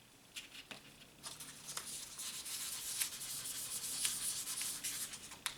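Wet sandpaper rubbed by hand over an aluminum heat sink: a scratchy hiss that starts about a second in, after a few light clicks, and keeps going.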